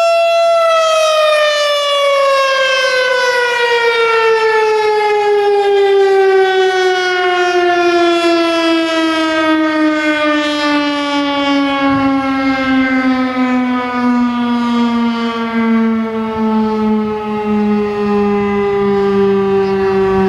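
Federal Signal STH-10 three-phase outdoor warning siren ending its steady Alert tone: the tone holds for about half a second, then the pitch slides slowly and steadily downward as the siren winds down after being switched off.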